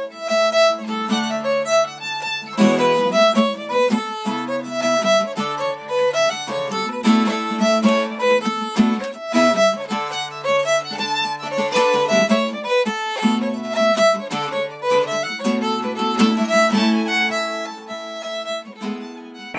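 A fiddle and an acoustic guitar playing a quick tune together: a bowed fiddle melody over strummed guitar chords.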